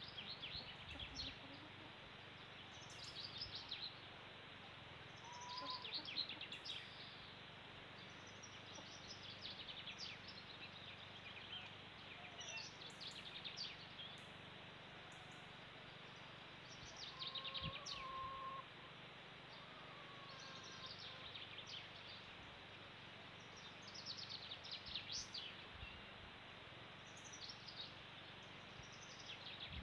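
Small songbirds singing outdoors, short bursts of high chirps and trills repeating every few seconds over a faint steady background hiss.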